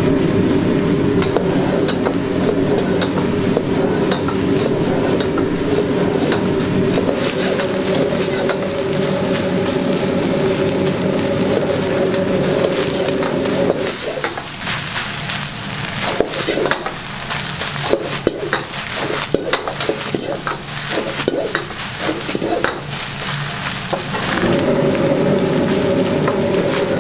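Metal ladle scraping and knocking in a steel wok as egg fried rice is stir-fried, with some sizzling, over the steady hum of the gas wok burner. About halfway through the hum drops away and the ladle's scrapes and knocks stand out; the hum returns a few seconds before the end.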